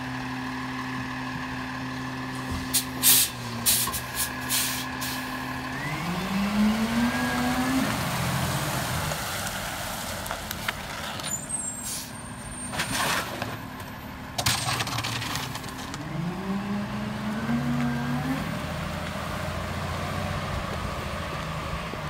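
Freightliner M2106 diesel garbage truck idling, then pulling ahead twice with the engine rising in pitch each time. A few sharp clanks of recycling bins hitting the Heil Durapack 5000 rear loader's hopper come early, and a loud hiss of air from the brakes comes about midway.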